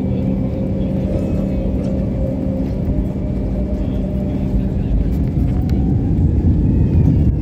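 Jet airliner cabin noise at a window seat while the plane rolls along the runway: a steady engine hum, then a rumble that grows louder over the last couple of seconds.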